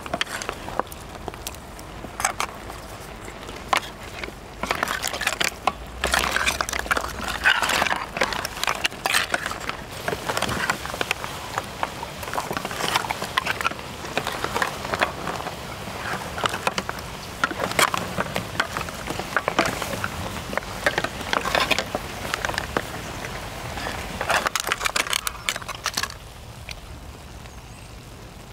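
Wooden spatulas stirring a big steel tray of shellfish and seafood: shells clattering and knocking against each other and the metal tray in quick irregular clicks, easing off near the end.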